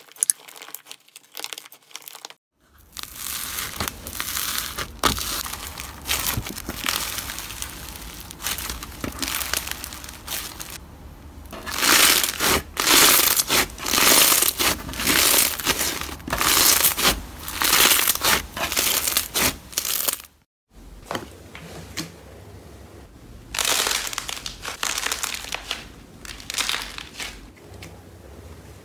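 Slime being pressed and squeezed by hand, crackling and crunching in repeated swells, loudest in the middle. The sound drops out briefly twice, about two and a half seconds in and again about twenty seconds in.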